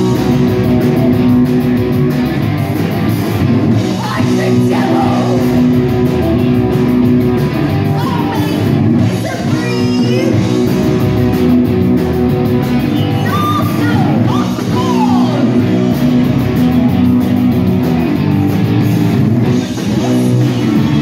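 Live rock band playing loud: electric guitar, drums and a singing vocalist, heard from within the audience.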